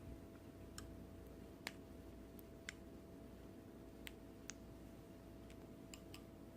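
Slime being played with, giving faint, scattered sharp clicks and pops, about nine over several seconds, over a steady low hum.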